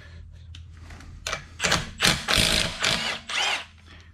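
Milwaukee M12 stubby 3/8-inch cordless impact wrench run in several short bursts about a second in, removing a car wheel's lug nut.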